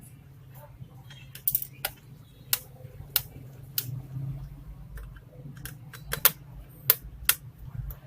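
Irregular sharp clicks and taps of an HP Pavilion G4 laptop's plastic parts being handled and worked apart, a few of them much louder, over a low steady hum.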